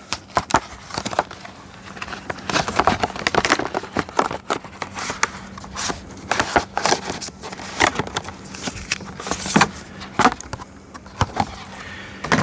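New Rain-X Latitude wiper blades and their packaging being handled and opened: an uneven string of crackles, clicks and knocks.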